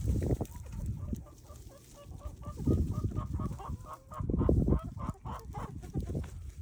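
Chickens clucking in a quick run of short notes, several a second, with louder low rumbling thuds about a third of the way in and again past the middle.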